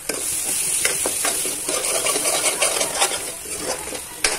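A steel spoon stirring and scraping masala frying in oil in a metal kadhai, with frequent clicks of the spoon against the pan over a steady sizzle.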